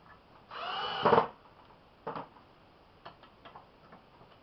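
Metal claw being fastened to a wooden beam: a brief whirring squeal under a second long about half a second in, then a few light clicks and taps.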